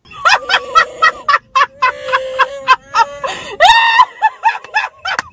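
A woman's high-pitched laughter in quick bursts, mixed with the warbling Wookiee growl of an electronic Chewbacca mask.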